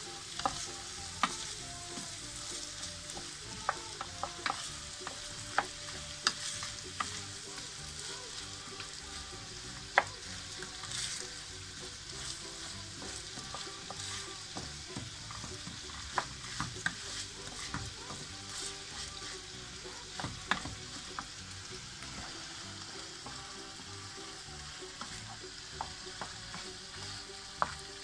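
Rice toasting in butter and oil in a frying pan, sizzling steadily while a wooden spoon stirs it, with frequent short clicks of the spoon against the pan.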